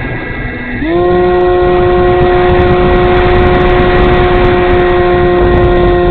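Brushless electric motor and propeller of an E-flite Timber RC plane. About a second in the pitch glides up as the throttle opens, then it holds a steady, loud whine.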